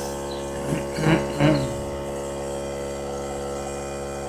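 A steady hum with a brief murmur of a voice about a second in.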